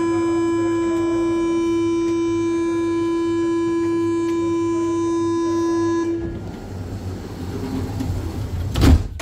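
Paris Métro line 5 train's door-closing warning, a steady buzzing tone held for about six seconds. A few seconds later the sliding doors shut with a loud thump.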